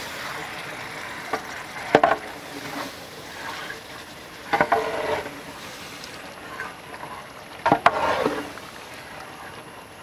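A metal ladle stirring chicken masala in a large metal cooking pot, the food sizzling and simmering underneath. The ladle knocks against the pot three times, each knock ringing briefly.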